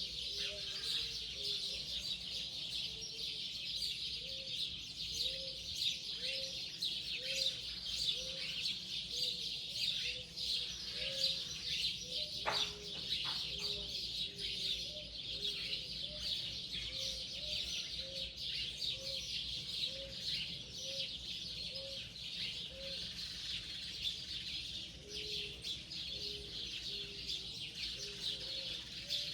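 Morning chorus of many birds chirping densely and high, with a low, short note repeated about twice a second through much of it, pausing for several seconds midway.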